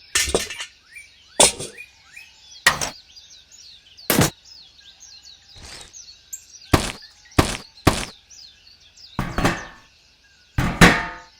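About a dozen sharp knocks at irregular intervals, each cut short, with faint birds chirping continuously behind them.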